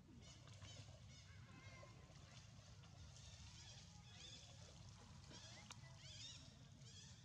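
Faint, repeated short high-pitched squeaky calls from monkeys, each rising and falling in pitch, coming several times a second, over a low steady hum.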